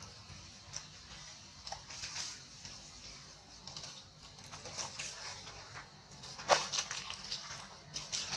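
Scattered soft crackles and rustles of dry leaves and grass as macaques shift about in the leaf litter, with one sharper crack about six and a half seconds in.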